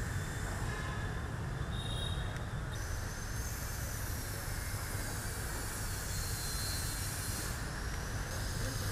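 Steady outdoor background noise: a constant low rumble under an even hiss, with no distinct events.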